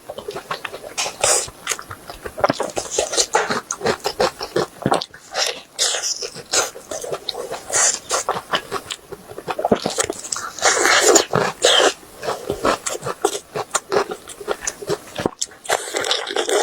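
A person eating grilled beef ribs, with dense, irregular wet mouth clicks and smacking from chewing and biting.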